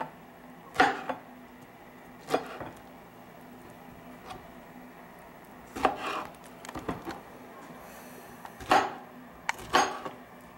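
Kitchen knife cutting peeled pineapple into chunks on a cutting board: about six sharp knocks of the blade meeting the board, irregularly spaced, with small clicks between them.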